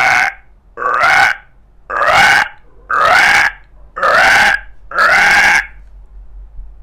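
A man imitating an animal call with his voice: six loud, identical calls about one a second, stopping about a second before the end.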